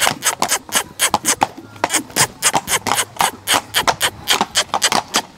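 A dancing horse's hooves striking the ground in a rapid, even run of hoofbeats, about five a second.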